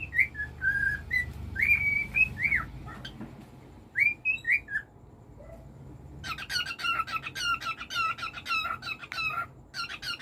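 Pet cockatiel whistling short rising and falling notes, then, after a brief pause about six seconds in, breaking into a fast run of repeated chirps, several a second.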